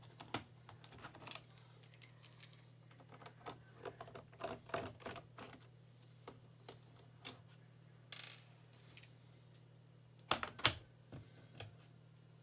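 Irregular plastic clicks and taps from a Logitech ERGO K860 split keyboard being handled and pressed: a dense run of clicks in the middle and two sharper, louder clicks near the end.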